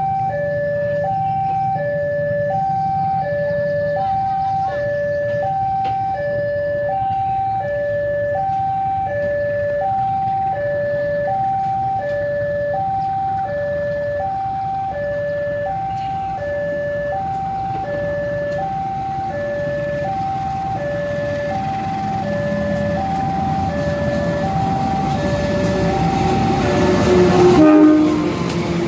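Railway level-crossing warning alarm sounding two alternating electronic tones, high and low, about one of each per second. Under it runs a CC201 diesel locomotive's engine, growing louder near the end as it passes close by.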